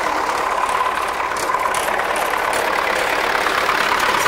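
MTZ tractor's diesel engine idling steadily.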